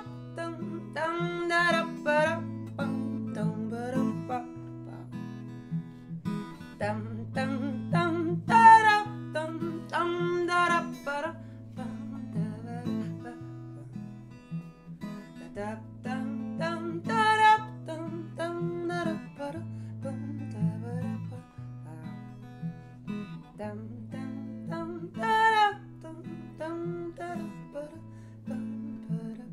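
Acoustic guitar strumming a repeating chord pattern as the closing instrumental of a folk song. A woman's voice sings short wordless phrases over it several times.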